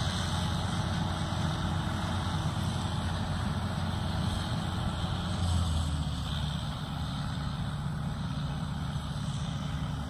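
Gleaner F2 combine harvester running while harvesting corn, a steady low engine hum; its note changes about halfway through.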